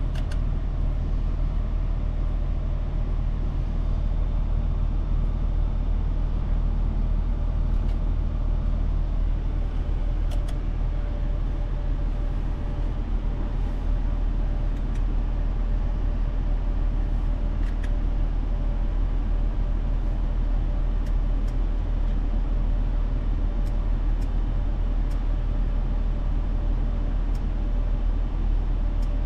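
Audi A6 Allroad 3.0 TDI V6 diesel running: a steady low rumble with no change in pitch or loudness, with a few faint ticks.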